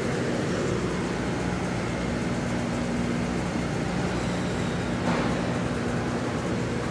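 Cemco 52-inch four-head planer sander line running, a steady machine hum with low steady tones. There is a brief louder noise about five seconds in.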